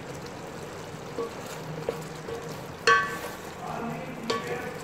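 Spatula stirring chicken and vegetables in a metal pot over a steady sizzle of cooking. A sharp knock about three seconds in makes the pot ring, with a smaller knock about a second later.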